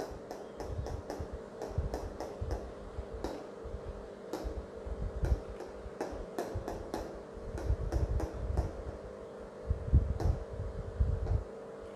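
Whiteboard marker tip tapping on a whiteboard while pointing at the words, sharp irregular clicks about two a second, over a steady low hum.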